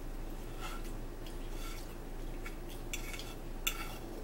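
Metal fork scraping and clinking against a plate while cutting a pancake: a handful of short scrapes, the loudest near the end, over a steady low hum.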